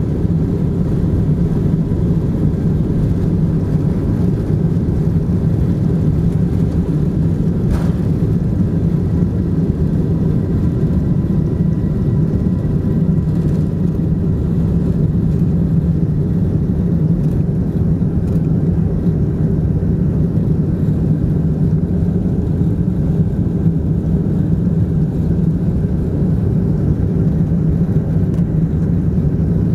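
Cabin noise of a Boeing 747-200 at takeoff thrust: the steady, heavy rumble of its four Rolls-Royce RB211-524 turbofans with a steady hum over it, through the end of the takeoff roll and into the initial climb.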